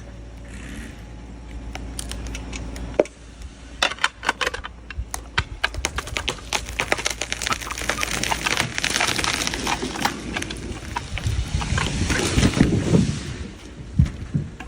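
A felled tree coming down: a run of sharp cracks and snaps builds into a rustling crash through branches, with a heavy low crash near the end as the trunk hits the ground.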